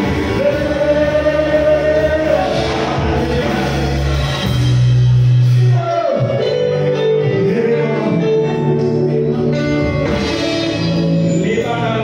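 Gospel worship music: singing voices holding long notes over instrumental backing, with a deep low note swelling loudest about halfway through.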